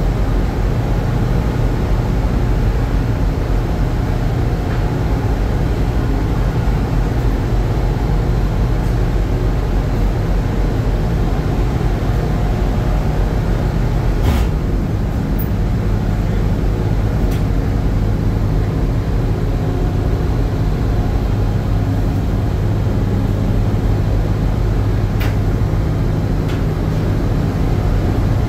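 Steady low drone of a fishing processor vessel's engines and deck machinery. The low hum shifts a little about halfway, with a sharp click there and a few faint ticks later.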